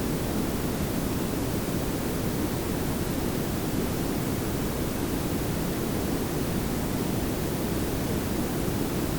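Layered pink and brown noise: a steady, even hiss over a low rumble, with no change from start to end.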